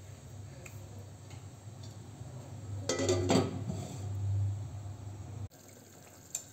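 Glass pot lid handled on a stainless steel cooking pot, clinking sharply against the metal rim several times about three seconds in, over a steady low hum.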